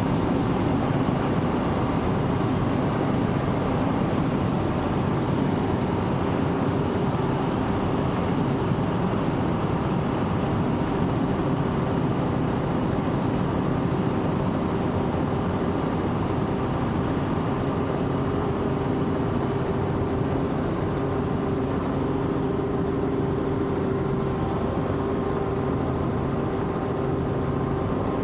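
Helicopter in flight heard from inside the cabin: a steady drone of engine and rotor noise with a constant hum.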